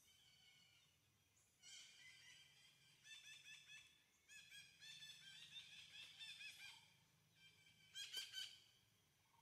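Faint runs of quick, high-pitched chirping calls in three bursts, the loudest a little before the end, over a low steady hum.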